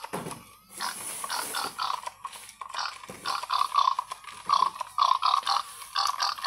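Battery-operated toy pig playing its electronic pig grunts and oinks through its little speaker, in quick runs of short calls that come in several bursts.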